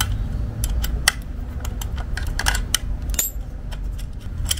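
Irregular metallic clicks and taps of a hand tool working loose the bolt that holds the dB killer in a stainless slip-on exhaust, over a steady low rumble.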